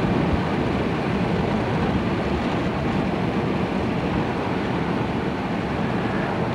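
Steady engine and road noise of a car driving along a highway, heard from inside the cabin.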